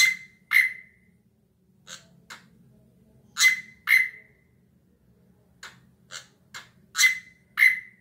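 A caged drongo (srigunting) calling: three pairs of loud, sharp, ringing notes, the two in each pair about half a second apart. Fainter sharp clicks come just before each pair.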